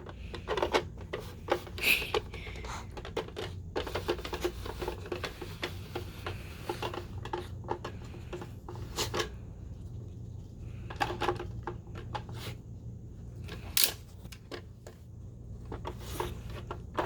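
A dog working at a puzzle box toy, with irregular clicks and knocks as the box pieces are nudged and shifted, a couple of sharper knocks standing out.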